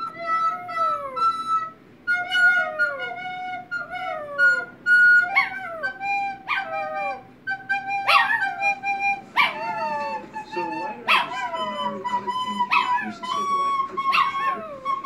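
A recorder playing held notes while a small dog howls along with it, each howl sliding down in pitch. From about five seconds in the howls start more sharply and come roughly every second and a half.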